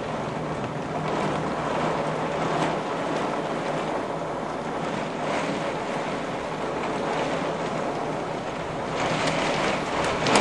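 Gale-force storm wind and heavy rain: a steady rushing noise that swells louder near the end.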